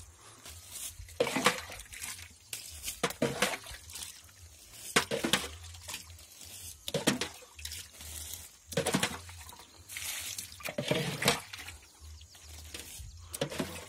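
Footsteps through a leafy vegetable garden, each step a soft swish of leaves and soil, about one every two seconds.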